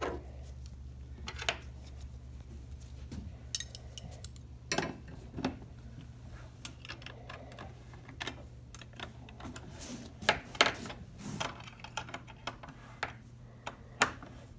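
Hand tools (a socket ratchet and wrench) clinking and clicking on the metal bolt and flange nuts of a John Deere meter roller, with scattered sharp knocks as tools are set down and fitted. The loudest clicks come about ten seconds in and again near the end.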